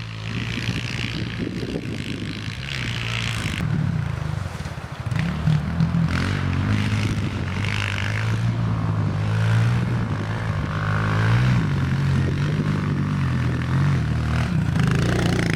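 Small off-road vehicle engine running steadily, its pitch wavering as the throttle changes.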